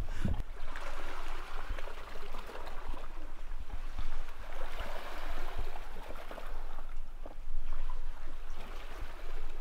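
Water gently lapping and trickling in calm sea, a soft uneven splashing with small ticks that swells and eases a few times.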